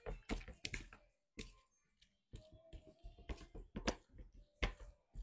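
Irregular light knocks and clicks of kitchen utensils being handled, about a dozen in five seconds.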